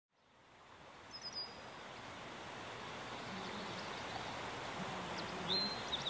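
Outdoor pond ambience fading in from silence to a steady, even hiss. Short high bird chirps come about a second in and again near the end.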